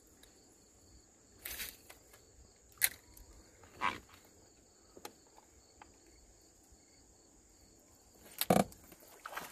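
Steady high insect drone, with a few sharp clicks and knocks from fishing gear being handled in a boat; the loudest knocks come about three seconds in and near the end.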